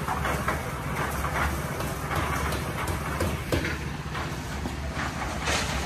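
One-bagger concrete mixer's engine running steadily, a low drone, with scattered knocks and clatter over it.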